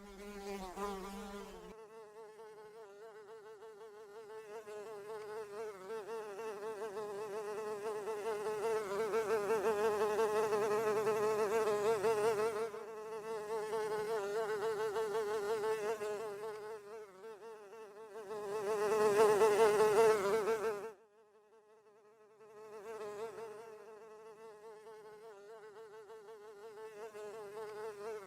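Housefly buzzing in flight, a steady wavering drone that swells and fades as it moves nearer and farther. It is loudest about two-thirds of the way through, then stops for a second or two before buzzing again.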